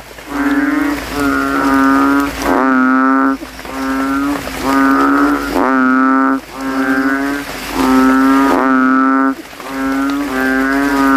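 A chorus of kintel frogs (Kaloula narrow-mouthed frogs) calling with inflated throats: loud, deep, bassy moaning calls, each about half a second to a second long, following one another almost without a break. Male frogs are competing to call loudest after rain.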